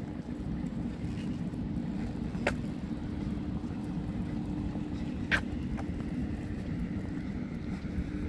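Outdoor ambience of a promenade: a steady low rumble with a faint steady hum under it, and two sharp clicks about three seconds apart.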